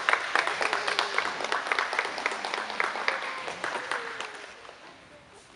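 Audience clapping, which thins out and dies away over about four seconds.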